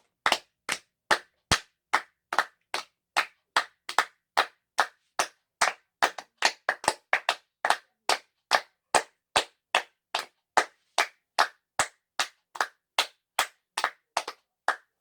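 One person clapping slowly and steadily, about five claps every two seconds, as if in praise.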